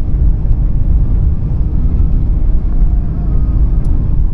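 A car driving, heard from inside the cabin: a steady, loud low rumble of engine, tyre and wind noise in a sandstorm.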